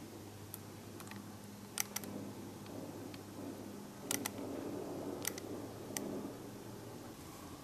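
Scattered sharp cracks of distant gunfire over a low background rumble: two single shots, then a quick burst of several about four seconds in, then two more single shots.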